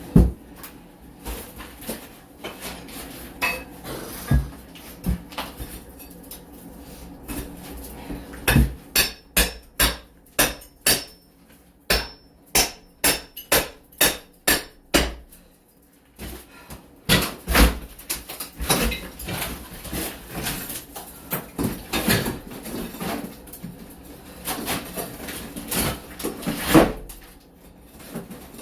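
Hammer blows knocking apart a wall screwed to cement board. In the middle there is an even run of strikes at about two a second, with scattered, irregular knocks and clatter before and after.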